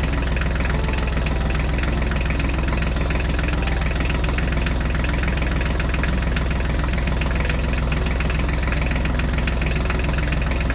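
Tractor engine idling steadily, an even low running hum with a rapid knock.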